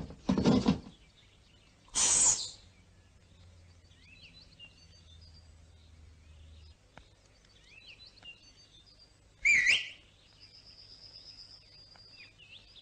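Faint bird chirping throughout, with a thin high whistle-like tone held for about two seconds near the end. Over it come three short, loud, noisy bursts: one right at the start, one about two seconds in, and one about nine and a half seconds in that ends in a falling sweep.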